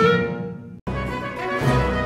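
A clarinet's last held note fading away, cut off abruptly just under a second in; then instrumental theme music with a deep bass begins at once.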